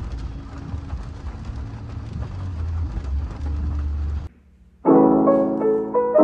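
Heavy rain pattering on a car's windows and roof, heard inside the cabin over a low rumble, cuts off suddenly about four seconds in. After a brief gap, louder solo piano music begins.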